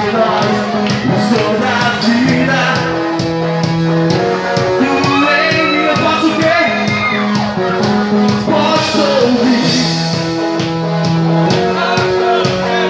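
Band playing a rock song with sung vocals, bass and drums keeping a steady beat.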